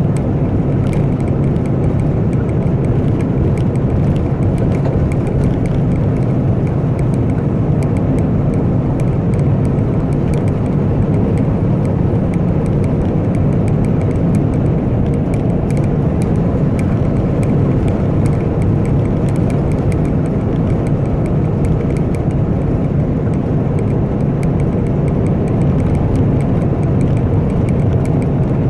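Dump truck's diesel engine and tyres droning steadily while cruising, heard from inside the cab.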